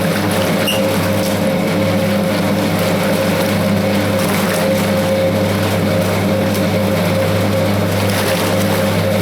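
Hoover 0321 wringer washing machine's electric motor running with a steady hum, churning the wash water to dissolve the washing powder.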